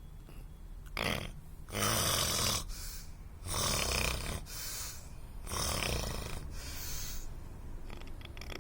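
A person snoring: four loud, noisy snoring breaths in a row, each about a second long, with short pauses between.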